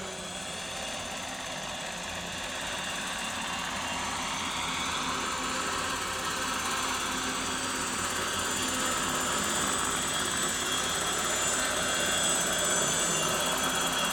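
Large radio-controlled scale model Lama helicopter flying past low: rotor noise with a steady high-pitched whine from its drive, growing louder as it comes closer.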